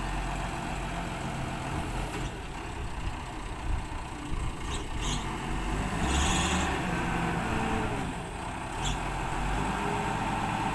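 Forklift engine running steadily under load while it carries a tank, its pitch shifting about six seconds in. Short hisses break in a few times.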